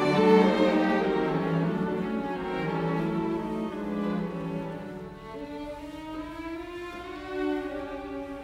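Background music on bowed string instruments, holding long notes that change about every second.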